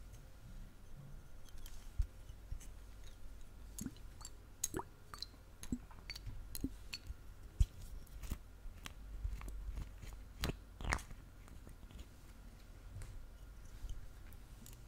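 Close-miked ASMR scratching: irregular crisp clicks and crackly scratches, with two longer scratchy strokes a little past the middle.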